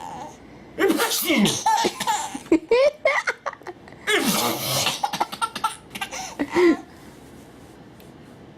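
Baby laughing in repeated bursts of short, high giggles, set off by fake sneezes. There is a loud breathy burst about four seconds in, and the laughter dies down over the last second and a half.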